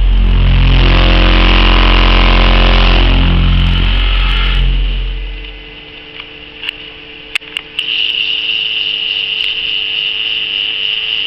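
Car-audio subwoofers playing a 44 Hz SPL burp for about five and a half seconds, a very loud, deep, steady tone thick with distortion from the amplifiers clipping, then stopping. A steady high whine and hum with a few sharp clicks follow.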